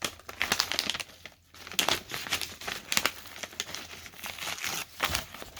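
Packing wrap crinkling and rustling in irregular bursts as it is handled and pulled off a parcel of old books.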